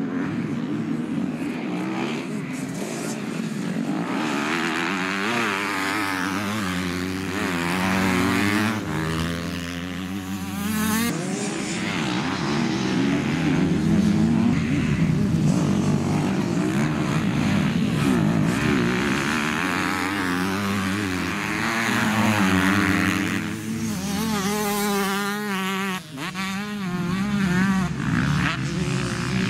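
Several dirt bikes racing, their engines revving up and dropping back over and over through gear changes as the bikes pass.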